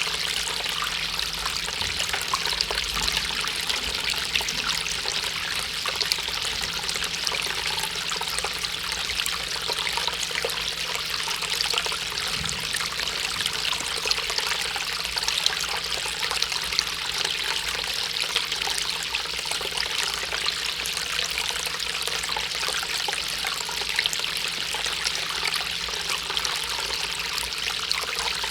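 Water steadily trickling and splashing down the bowls of a five-tier polystone outdoor water fountain.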